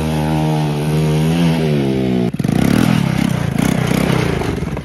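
Small quad (ATV) engine running under throttle as it is ridden across the yard, at first with a steady note that eases slightly. About two seconds in it turns louder and rougher, with a fast pulsing as the quad comes up close.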